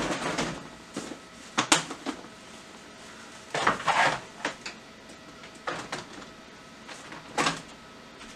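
Someone rummaging through kitchen cupboards and drawers for a screwdriver: scattered knocks and rattles, with a sharp clack about two seconds in and a longer clattering rattle about four seconds in.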